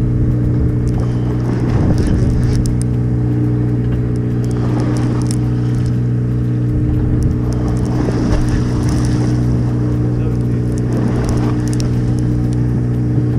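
Sportfishing boat's engine running with a steady, unchanging low drone.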